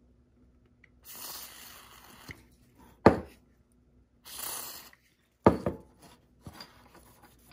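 Two short hisses of aerosol contact cleaner sprayed through a straw nozzle into a dismantled Alps K-series slide fader, the first about a second long and the second a little shorter. They alternate with two sharp knocks, the loudest sounds.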